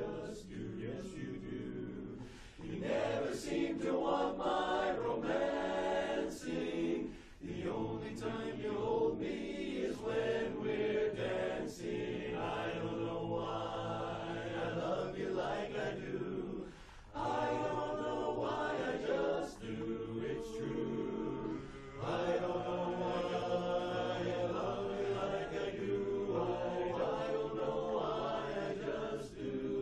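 Mixed barbershop chorus, mostly men's voices with one woman, singing unaccompanied in close four-part harmony, in phrases broken by brief pauses for breath.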